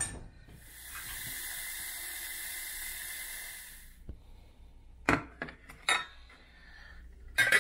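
Tap water running steadily into a stainless steel saucepan for about three seconds, then cut off. Then metal knocks and clinks as the pan is set on a glass-top cooktop and handled, the loudest near the end.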